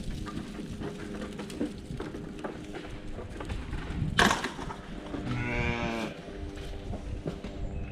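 Goat kids bleating: one long bleat about five seconds in, following a brief, louder rising sound a second earlier.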